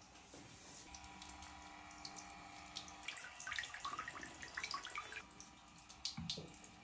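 Small jets of water from a floating spray-fountain crab bath toy dripping and splashing back into the bathwater, growing busier about three seconds in, with a soft thump near the end.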